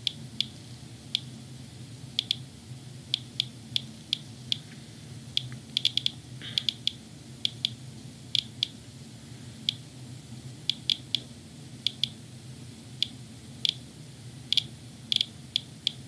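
Inspector Alert Geiger counter chirping once per detected count, at irregular random intervals of roughly two a second, over a low steady hum. The rate matches the display's reading of about 126–134 counts per minute from a used HEPA air filter, several times the house's background of about 30–35 cpm.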